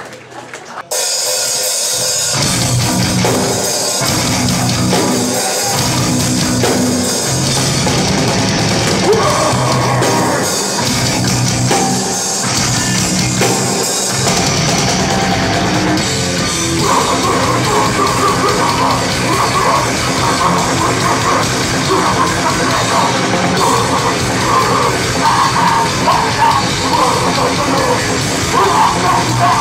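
Grindpunk band playing live: distorted guitar, bass and drums kick in suddenly about a second in and keep going loud and fast. A repeated higher riff comes forward partway through.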